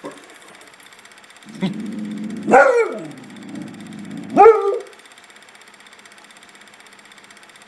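Boxer dog growling low and giving two loud barks, about two seconds apart, then falling quiet for the last few seconds. It is spooked, sounding off at something in the backyard though nothing is there.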